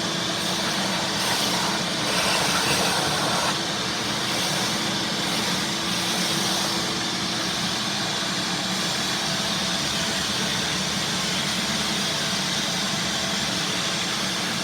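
Vacuum cleaner running steadily with an even rushing of air and a faint motor hum.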